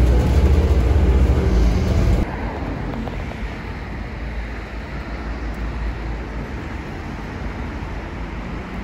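Low rumble of a bus interior while riding, which cuts off abruptly about two seconds in, giving way to quieter street noise with passing traffic.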